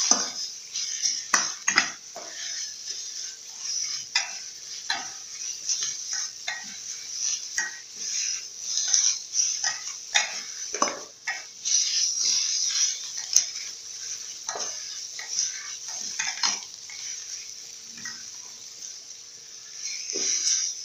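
Metal spatula stirring and scraping chopped chicken and chili around a metal pan, in irregular scrapes and clinks over a steady hiss of frying.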